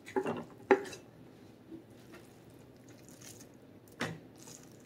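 Raw ground sirloin pushed off a plate and dropping into a plastic stand-mixer bowl: a few soft thuds and plops in the first second, then one more knock about four seconds in.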